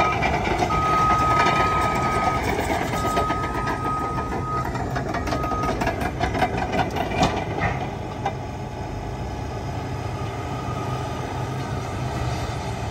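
Cat D8T crawler dozer's diesel engine running under work while its backup alarm gives three long beeps, the last cut short, as it reverses. About halfway through the alarm stops and a run of sharp clanks and cracks follows, then the engine runs on steadily.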